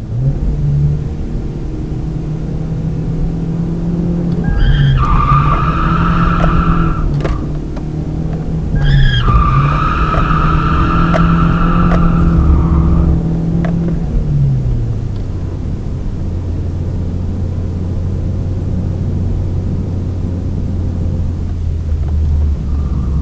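Toyota Altezza's engine held at high revs while its Nankang NS-2 tyres squeal through two long slides, the first about five seconds in and the second, longer one about nine seconds in. After that the engine note falls away to a low, steady hum.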